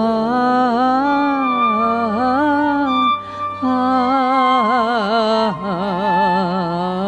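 A woman singing a slow Yiddish song with wide vibrato, over a steady held accompanying note; she breaks off briefly for breath about three seconds in.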